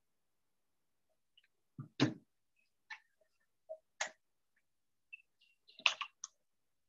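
Irregular faint clicks and light knocks with quiet gaps between them. The loudest is a knock about two seconds in, followed by a small cluster of clicks about six seconds in.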